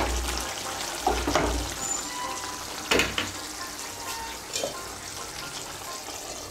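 Soya chunk and potato curry simmering and bubbling in a kadai, with a steady sizzle. A spatula knocks and scrapes against the pan a few times, loudest about three seconds in.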